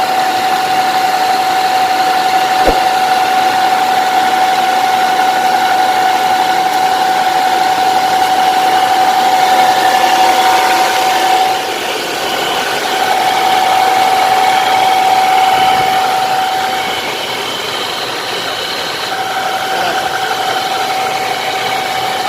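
Hyundai Santa Fe drivetrain running with a steady, high humming whine, easing off briefly twice. The noise comes from the transfer case, where a worn bearing inside is suspected.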